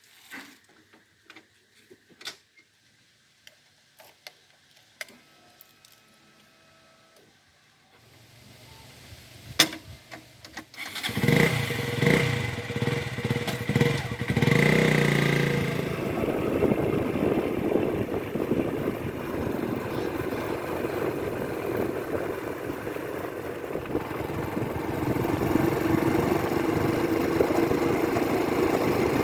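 A few faint clicks, then a sharp click and a diesel engine starting about ten seconds in: it catches, revs up and down briefly and settles into steady running.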